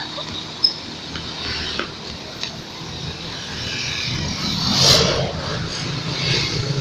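Roadside traffic: a steady low engine rumble, with a vehicle rushing past about five seconds in, swelling and fading.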